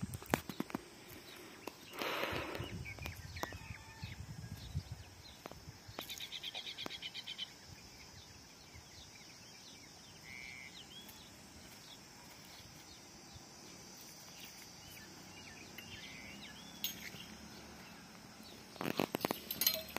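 Outdoor rural ambience: a steady high-pitched drone throughout, a short rapid trill about six seconds in, a brief chirp around ten seconds, and a cluster of clicks and knocks near the end.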